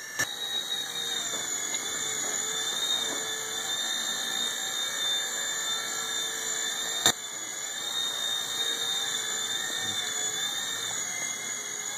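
Blade mSR X micro RC helicopter's small electric motors and rotors whining steadily in flight, the pitch wavering slightly as the throttle changes. A sharp knock about seven seconds in.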